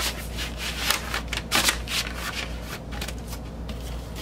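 Handling of a vinyl LP's cardboard jacket and paper sleeve: a run of short, irregular papery rustles and scrapes.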